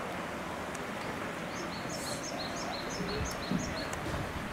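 A small bird calling in a quick series of short, high chirps, about four a second, starting about one and a half seconds in and stopping near the end, over steady outdoor background noise. A soft low thump about three and a half seconds in.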